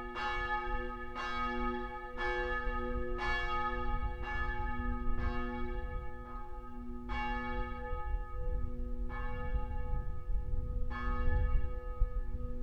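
A church bell ringing, its strikes coming about once a second with a long hum between them, then spacing out to about two seconds apart in the second half. A low rumble sits underneath.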